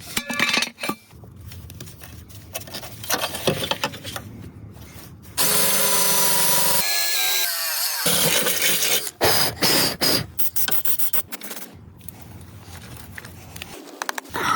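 A power drill running in short spells amid clicking and scraping of hand work, loudest about five to seven seconds in, with its whine changing pitch just after.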